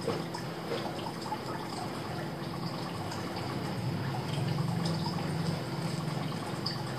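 Straight razor scraping stubble off a face in short strokes: a string of small crackling ticks, over a steady low electrical hum.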